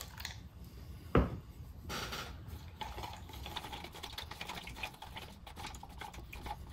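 A wooden craft stick stirring watered-down grey paint in a clear plastic cup, a rapid run of small clicks and scrapes against the cup's sides. A single knock about a second in.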